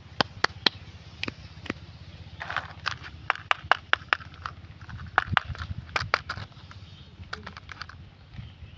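Plastic candy packaging being handled: many sharp clicks and taps, with short spells of wrapper crinkling about two and a half and five seconds in, over a low steady hum.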